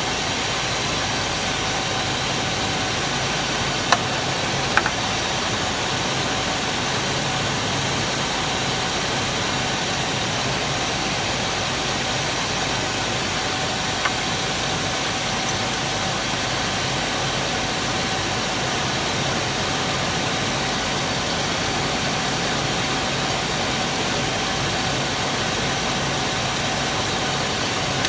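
Chevy 5.7 L Vortec V8 idling steadily while the distributor is turned to set base timing. A few sharp clicks come about four and five seconds in and again around fourteen seconds.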